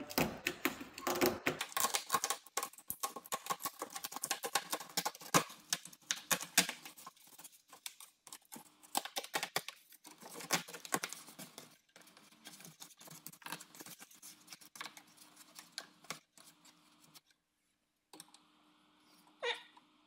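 Plastic inner door cover of a Mercedes W211 E-Class being peeled away by hand from the door: dense, irregular crackling and popping of the sheet pulling free. The crackles thin out after about twelve seconds and have nearly stopped a few seconds before the end.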